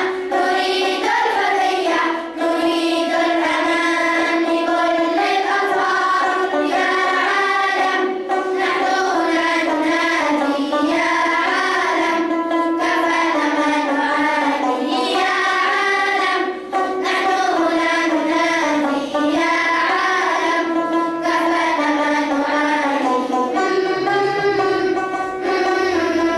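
A children's choir singing an Arabic children's nasheed together.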